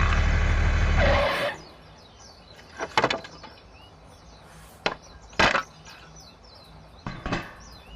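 A steady low motor hum cuts off suddenly about a second in, followed by four or five short, sharp knocks of hard objects, spaced one to two seconds apart.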